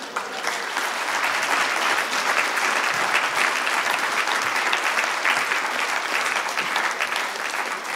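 Audience applauding: a long round of clapping from a large crowd. It builds up over the first second, then holds steady before easing slightly near the end.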